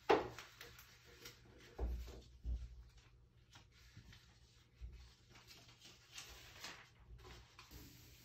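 Vinyl contact paper being pressed and smoothed by hand onto a door: faint rustling, a sharp crackle at the very start, and a few dull thumps.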